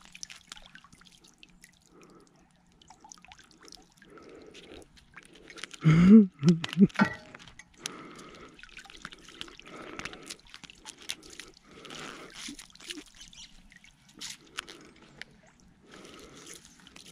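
Lake water dripping and trickling from a clump of weed hauled up on a magnet, falling back into the lake, with the wet weed and fishing line being handled. There is a short loud sound about six seconds in.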